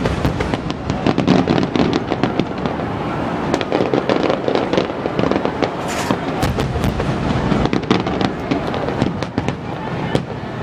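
Fireworks going off in quick succession: many overlapping bangs and sharp crackles over a continuous rumble of bursts, with no pause.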